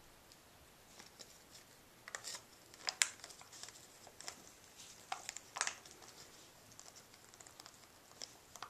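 Wrapping paper crinkling and tearing in short, irregular crackles as a small dog noses and tugs at it, loudest about two to three seconds in and again around the middle.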